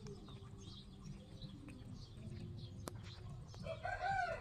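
Rabbits chewing watermelon, faint wet crunching and ticks over a low outdoor rumble. A sharp click comes about three seconds in, and a bird gives a short call near the end.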